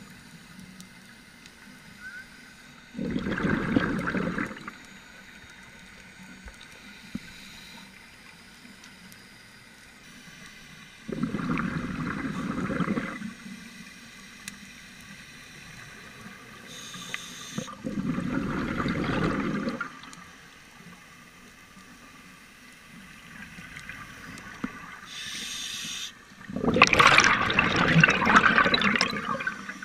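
Scuba diver's exhaled bubbles bursting from a regulator underwater: four gurgling rushes about every seven to eight seconds, with a faint hiss of inhalation before some of them. The last rush is the longest and loudest.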